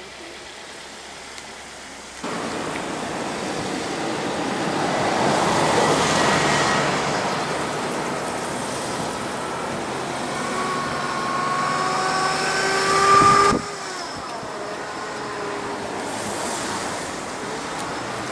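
A bull elk bugling during the rut: a high whistle that rises in pitch over about three seconds and grows louder before cutting off sharply. Beneath it and before it, a loud steady rushing noise starts suddenly, swells and eases.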